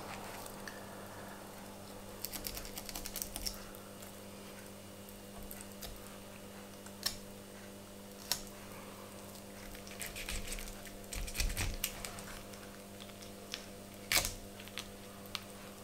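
Light, scattered clicks and taps of a knife and fingers working a herring open on a plastic chopping board, over a steady low hum.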